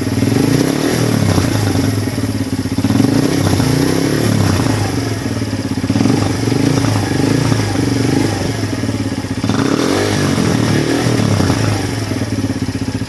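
Benelli VLX motorcycle engine running through a modified exhaust, revved repeatedly: the pitch rises and falls with each throttle blip, about every one and a half to two seconds.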